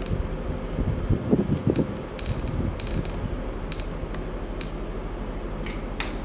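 Felt-tip marker writing on a whiteboard: short irregular scratching and squeaking strokes as a word is written, then a few sharp clicks and strokes as it is underlined.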